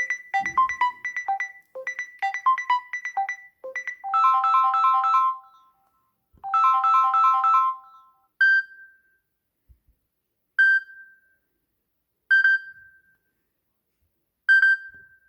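Samsung Galaxy S10 ringtone and notification tones playing in turn. First a short melody of quick plucked notes plays twice, then a repeated chord-like figure plays twice. After that a single short chime sounds four times, about two seconds apart.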